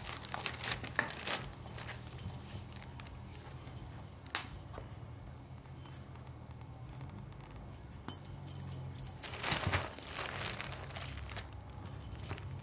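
Thin plastic bag rustling and crinkling as a cat paws at it and pushes into it, in bursts within the first second or so and again from about nine seconds in, with a quieter stretch between.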